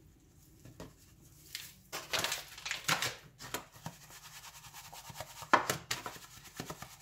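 A plastic tub being shaken and tilted on a wooden board to coat chicken rolls in flour: a series of scrapes and knocks, the loudest a little past the middle, then quick light taps.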